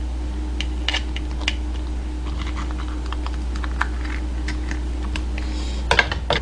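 Kitchen scissors snipping and clicking through the shell and legs of a soy-marinated raw blue crab: scattered light clicks, then a louder cluster of cracks about six seconds in as the shell is pulled apart by hand. A steady low hum runs underneath.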